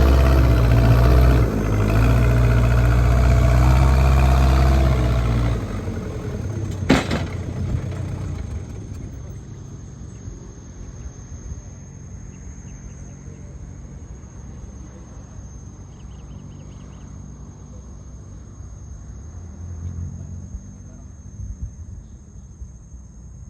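JCB backhoe loader's diesel engine running loud, then dropping away sharply about five seconds in. A single sharp clank follows a second or so later, after which only a faint, steady high insect chirring remains.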